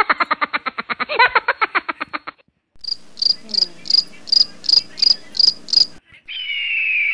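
Dubbed-in sound effects. A rapidly pulsing, pitched animal-like call runs for the first two seconds or so. It is followed by a cricket chirping about three times a second, and then, near the end, a long high tone that slowly falls in pitch.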